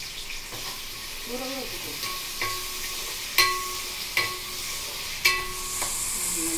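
Onions frying in hot oil in a kadai, with a steady sizzle, while a ladle stirs them and strikes the pan several times, each strike a ringing clink, the loudest about halfway through.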